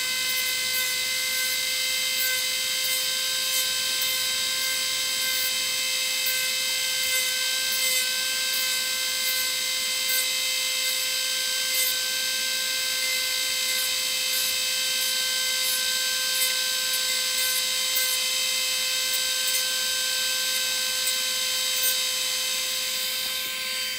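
Electric rotary tool with a small cutting disc running at a steady high-pitched whine. It is being used to trim a rabbit's overgrown lower incisors, with faint brief ticks as the disc touches the tooth.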